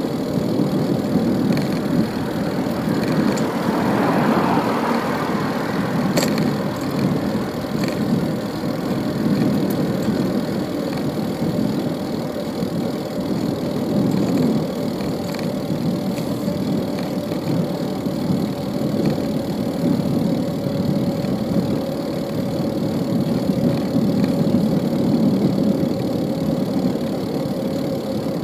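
Steady city street traffic noise, engines and tyres, swelling briefly about four seconds in.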